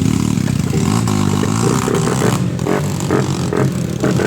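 Trail motorcycle engine revving, its pitch rising and falling under changing throttle.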